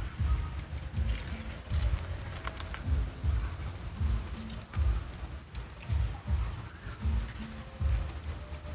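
Night crickets trilling steadily, a high pulsing chirp over a continuous higher hum, with a low thumping beat about once a second underneath.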